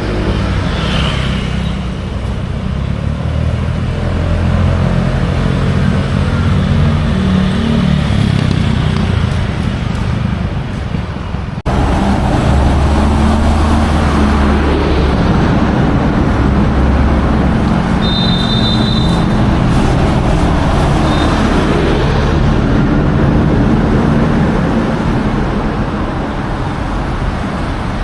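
Busy road traffic: engines of cars and larger vehicles running steadily with a heavy low rumble, the sound changing abruptly about twelve seconds in. A brief high beep sounds about two-thirds of the way through.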